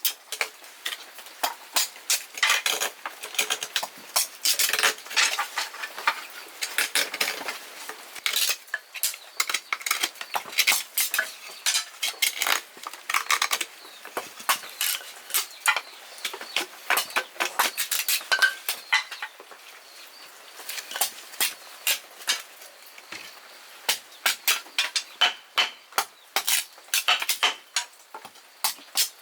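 Quick, irregular clinks and taps of kitchen utensils against pots and dishes, several a second, easing off for a few seconds past the middle before picking up again.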